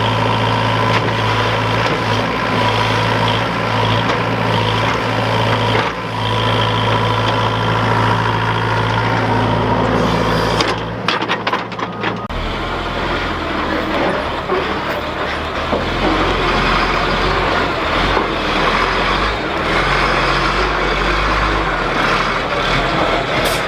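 Diesel engine of a heavy earth-moving machine running under work while digging septic ditches in sand. About halfway through there are a few clanks and the engine note drops lower.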